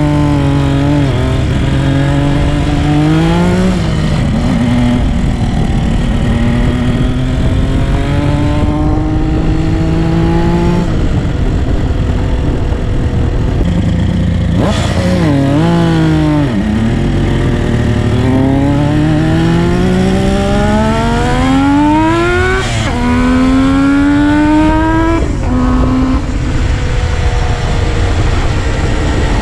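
Kawasaki S3/KH400 air-cooled two-stroke triple through a Zenshin 3-into-1 exhaust, ridden on the road: the engine note climbs as the bike accelerates and drops suddenly at each gear change, several times over, with steadier cruising between.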